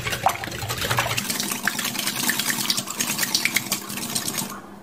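Egg yolks, oil and milk being beaten together in a bowl: rapid, continuous clicking of the utensil against the bowl with liquid sloshing, stopping shortly before the end.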